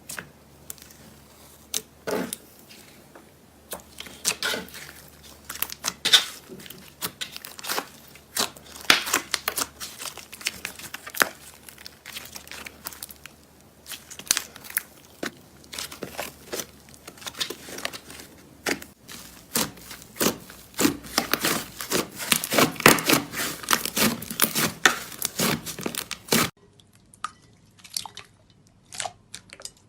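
Slime being squeezed and worked by hand, giving dense irregular crackles and pops. About three-quarters of the way through it switches abruptly to quieter, sparser pops.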